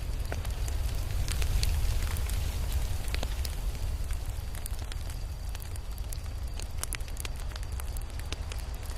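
Crackling fire: irregular sharp pops and crackles scattered over a steady low rumble.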